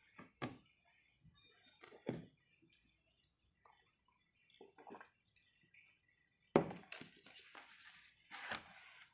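A few scattered faint knocks and clicks in a small room, with the loudest knock about two-thirds of the way through, followed by a brief faint rustle.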